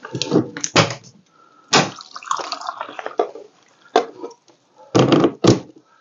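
A glass-paned wooden door being opened and gone through: a handful of sharp knocks and clatters, spread out, with two of the loudest close together near the end.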